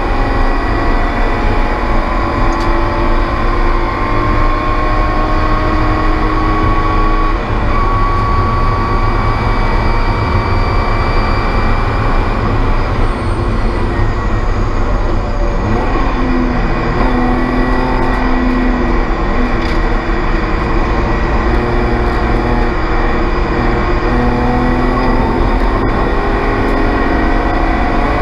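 Spec E36 BMW race car's engine running hard at high revs on track, its note climbing slowly and then dropping at gear changes about a third of the way in and again near the middle.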